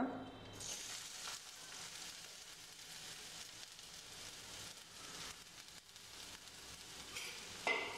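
Shredded red cabbage sizzling faintly in hot oil in a stainless-steel kadai as it is tipped in by hand to be sautéed. The sizzle sets in about half a second in and holds steady.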